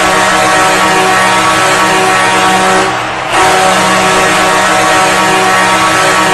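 Detroit Red Wings arena goal horn blaring in long, low-pitched blasts. One blast cuts off about three seconds in and the next starts half a second later.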